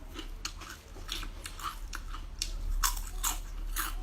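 Close-up crunching and chewing of crispy home-fried pork-fat cracklings (youzila), with sharp irregular crunches several times a second.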